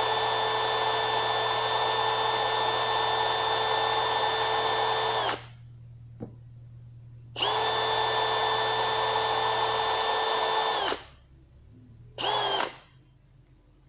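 Cordless drill running at a steady speed, a long rod in its chuck spinning to clean out hydraulic lifter parts. It runs for about five seconds, stops, runs again for about three and a half seconds, then gives a short burst near the end.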